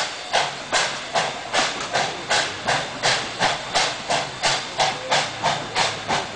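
Steam locomotive chuffing steadily, a regular beat of about two and a half exhaust chuffs a second.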